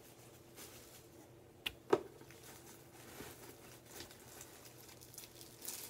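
Faint handling of a cardboard box and its plastic packing, with two sharp clicks close together about two seconds in, the second louder.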